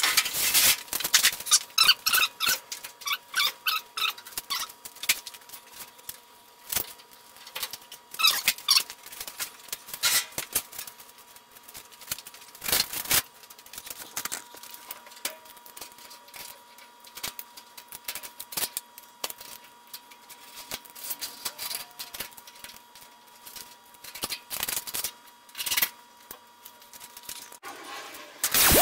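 Irregular clicks, knocks and short squeaks of hands-on work and handling in a garage workshop, busiest in the first ten seconds, with a faint steady tone underneath.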